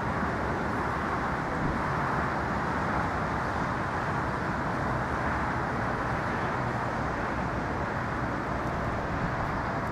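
Steady outdoor background noise, an even rumble and hiss that holds level throughout.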